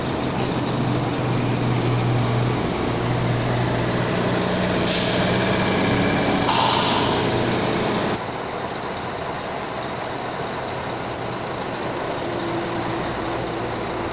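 Bus engine running with a steady low hum, with two short bursts of air-brake hiss about five and six and a half seconds in. The engine sound drops suddenly about eight seconds in and carries on more quietly.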